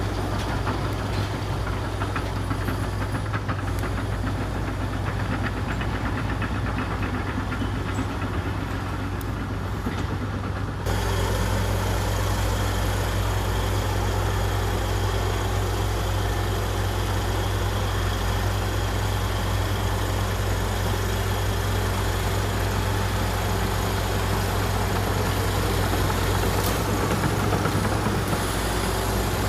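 Komatsu D61EX bulldozer's diesel engine running steadily at work. The sound changes abruptly about eleven seconds in and becomes slightly louder and fuller.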